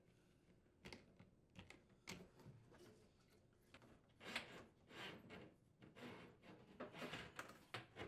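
Faint scraping and rustling of a corrugated plastic dishwasher drain hose being pulled out through the hole in a cabinet wall, with a few light clicks of handling.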